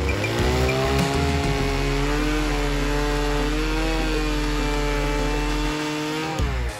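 Stihl two-stroke chainsaw revving up to full throttle and cutting into a cedar block, holding a steady high pitch, then easing off near the end.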